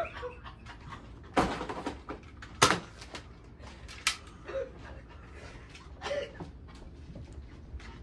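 A few scattered knocks and sharp clicks with a short rustling burst, and brief faint muffled vocal sounds.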